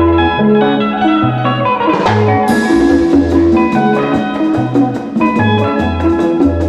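Instrumental music: a bass line under melodic pitched notes, with drums coming in on a cymbal crash about two and a half seconds in and a steady beat after.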